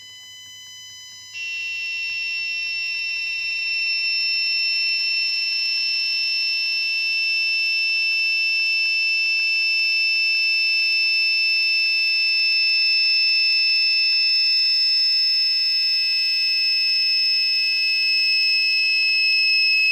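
Small 5 V buzzer fed a 1 kHz PWM signal, sounding a continuous shrill tone. It jumps louder about a second and a half in, then keeps getting gradually louder as the duty cycle is raised from about 17% to nearly 80%.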